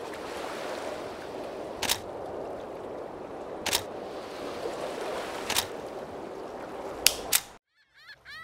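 Camera shutter clicks, five in all: four at intervals of about two seconds, the last two close together. Under them is a steady rushing like running water. The sound cuts off near the end, and faint honking calls begin right after.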